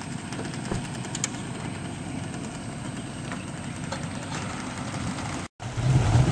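An engine idling steadily, with a few faint clicks. Near the end the sound cuts out for a moment and a louder, lower outboard motor hum takes over as a center-console boat motors away.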